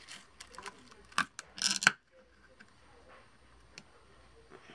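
Plastic lid being prised off a plastic can of Minwax Polycrylic. A few sharp clicks are followed by a quick cluster of crackles just before two seconds in, the loudest part.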